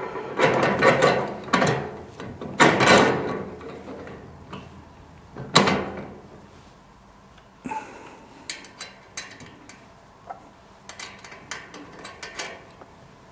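Long steel axle bolt scraping and clanking as it is pushed through the wheelbarrow wheel's hub and the frame, then a run of lighter metal clicks and taps as the fitting is worked.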